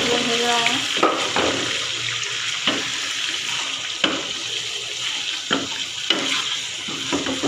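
Raw, freshly washed chicken pieces sizzling and hissing in oil with browned onions in a metal pot, stirred with a wooden spoon that knocks against the pot several times.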